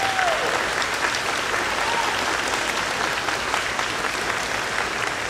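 Audience applauding: many hands clapping together at a steady level throughout.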